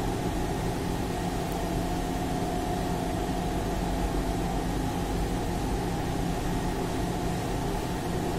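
Steady machine hum over an even hiss, with a few faint held tones.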